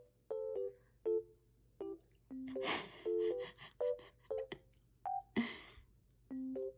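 Light background music of short plucked, mallet-like notes. Over it, about three seconds in, comes a quick run of crunching clicks as a cat gnaws on a dry silver vine stick.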